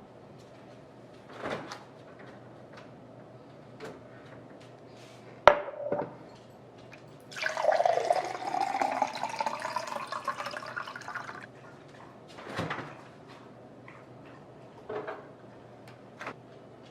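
Water running or pouring for about four seconds with a tone that rises as it goes, among scattered knocks and a sharp click.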